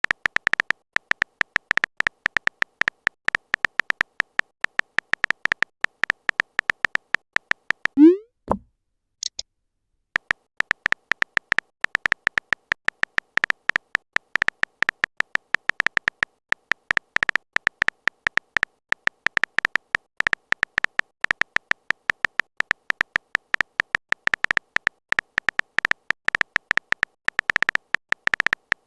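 Chat-story typing sound effect: a rapid, even run of short high clicking beeps. About eight seconds in it breaks for a short, louder rising swoop and a high blip, falls silent for about a second, then resumes.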